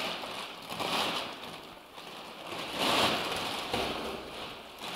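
Clear plastic bag crinkling and rustling as it is pulled off a machine, swelling louder about one second in and again about three seconds in.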